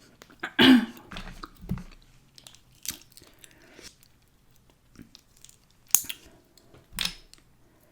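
Close-miked chewing and wet mouth sounds of a person eating, with scattered short clicks and smacks. One sharp click about six seconds in.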